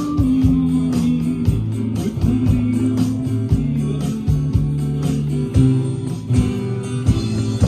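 Band playing an instrumental passage of a folk song: strummed and picked guitars over a bass line, with a steady beat and no singing.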